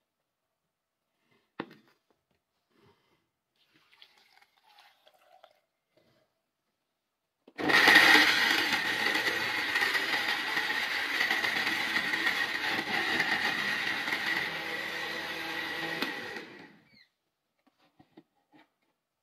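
Electric blender's motor running for about nine seconds, puréeing chopped tomato, with a steady high whine; it starts suddenly about seven and a half seconds in and winds down at the end. A single sharp knock comes before it, about a second and a half in.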